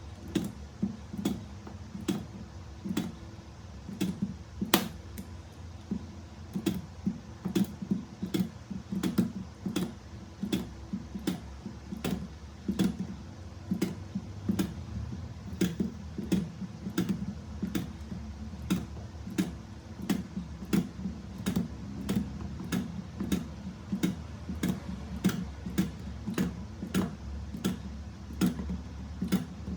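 Battery spot welder firing on nickel strip over 18650 cells, a sharp click with a short thump at each weld, about three every two seconds. One weld about five seconds in is louder than the rest.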